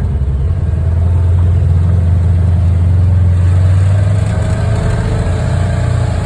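Side-by-side UTV engine running with a steady low drone. It grows a little louder about half a second in and eases back around four seconds in.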